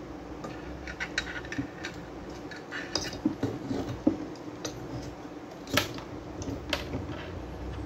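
Irregular light clicks and knocks of small hard parts being handled: a small amplifier circuit board, its components and wiring being fitted inside a particleboard speaker cabinet. The sharpest click comes about two seconds before the end.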